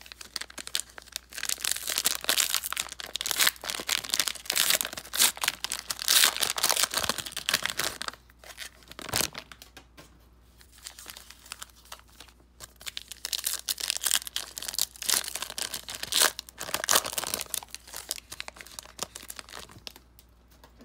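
2020 Prizm Draft Picks trading card pack wrappers being torn open and crinkled. The crinkling comes in two long spells with a quieter gap of a few seconds between them.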